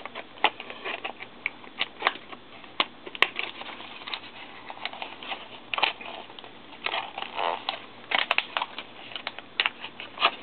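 Packaging being handled and opened by hand: irregular clicks and taps with a few longer crinkly rustles.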